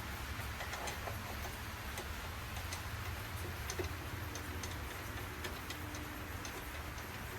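Light, irregular clicks and taps of small metal parts and screws being handled while the smoker's fan housing is refitted, over a steady low hum. A faint held tone comes in about four seconds in and fades a few seconds later.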